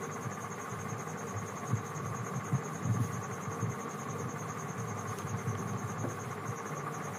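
Faint scratching and light knocks of a pen writing on notebook paper, over a steady background hum, with a faint high, evenly pulsing trill throughout.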